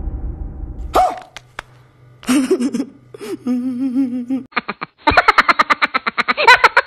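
Comic meme sound clip edited over the video: a few short wavering vocal cries, then from about halfway a rapid run of laughter-like voice pulses, several a second.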